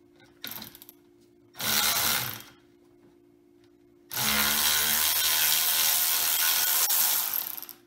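Cordless electric ratchet running in bursts as it backs bolts out of a rear differential housing. There is a short blip, then a burst of about a second, then a steady run of about three and a half seconds.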